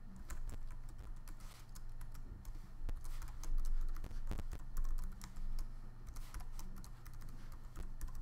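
Typing on a computer keyboard: irregular keystrokes as an account name and a password are entered.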